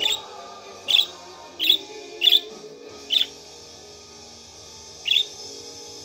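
Budgerigar giving six short, high chirps, spaced irregularly, over quieter background music.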